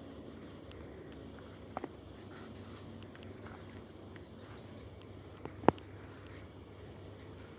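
Night forest ambience with a steady high insect drone over a low background hiss, broken by a few sharp clicks: a quick pair about two seconds in and a louder single crack a little after five and a half seconds.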